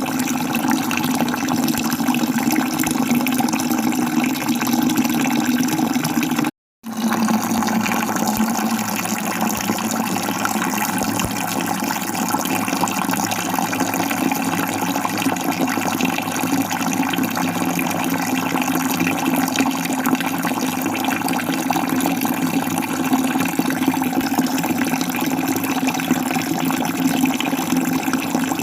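Falling water rushing steadily, with a continuous hiss and a low rumble. It cuts out completely for a split second about six and a half seconds in, then carries on unchanged.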